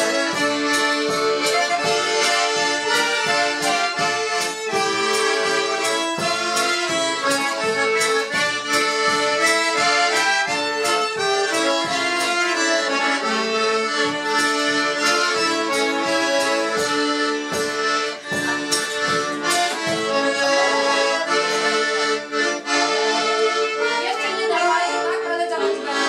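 Two piano accordions and a fiddle playing a Kurpie traditional dance tune, with a frame drum keeping a steady beat.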